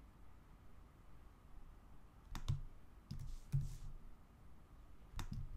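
Several scattered clicks of a computer mouse and keyboard, starting a little over two seconds in, some in quick pairs, over faint room tone.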